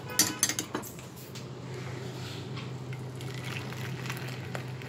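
A few light clicks of a stainless steel pot being handled, then thickened milk pouring from the pot into a steel bowl with a soft liquid sound.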